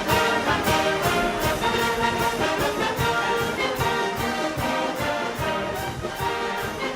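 Orchestral music led by brass, trumpets and trombones, playing with a steady beat.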